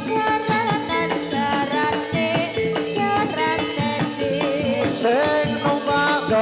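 Javanese gamelan music accompanying a jathilan dance: hand-drum (kendang) strokes driving the rhythm under ringing metallophone notes, with a singer's voice gliding over it.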